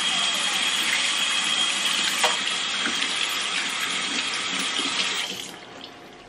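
Tap water running into a stainless-steel kitchen sink as hands are rinsed under the stream, a steady rush that dies away about a second before the end.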